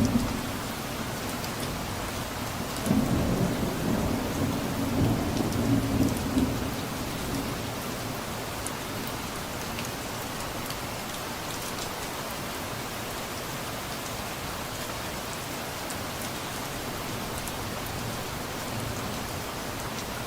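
Steady rain with distant thunder: a brief rumble right at the start, then a longer roll of thunder swelling about three seconds in and fading out by about seven seconds, leaving only the even hiss of the rain.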